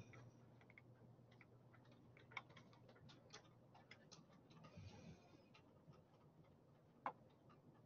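Near silence broken by faint, irregular small clicks, the two clearest about two and a half seconds in and near the end.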